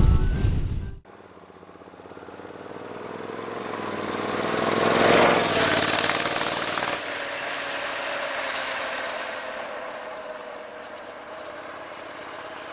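A motorcycle approaching and passing close by on the road, its engine loudest about five seconds in, then fading slowly as it rides away.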